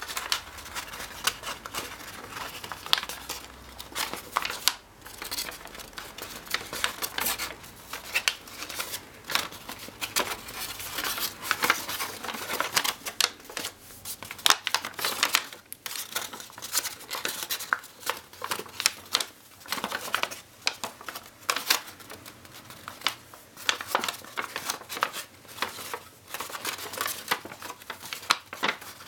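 A sheet of origami paper crinkling and rustling under the fingers as it is folded and creased by hand, with many small, irregular crackles.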